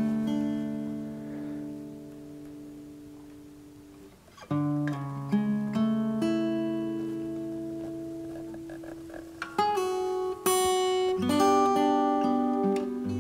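Background music on acoustic guitar: plucked notes and chords that ring out and die away. The playing thins to a quiet dip about four seconds in, then new chords pick up again.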